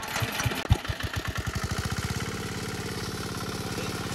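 Small engine-driven water pump starting up: its firing is uneven at first, quickens over the first two seconds, then settles into steady running as it pumps water out of the pond.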